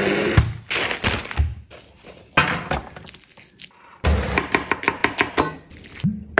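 A rapid run of kitchen prep sounds: a string of knocks, clatters and clicks from cookware and utensils, with a fast flurry of clicks about four seconds in.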